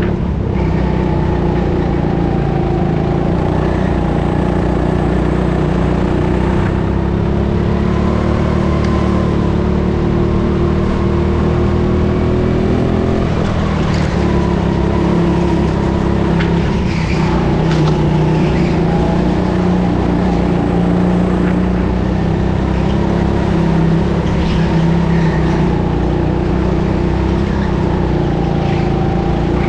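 Go-kart motor running as the kart laps, heard onboard, its pitch rising and falling as it speeds up and slows for corners.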